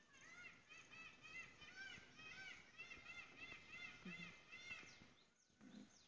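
Faint chorus of small birds chirping: many short rising-and-falling notes at several pitches, repeated rapidly and overlapping, dying away about five seconds in.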